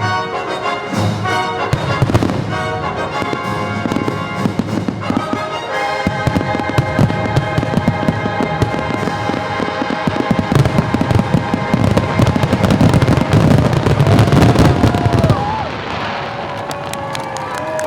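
Fireworks bursting in a dense barrage over orchestral show music from the park's speakers, the explosions building to a finale and stopping about fifteen seconds in. Crowd voices rise as the barrage ends.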